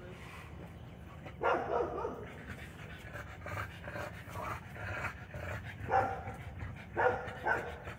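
A dog whining and yipping a few times, once about a second and a half in and again in the last few seconds.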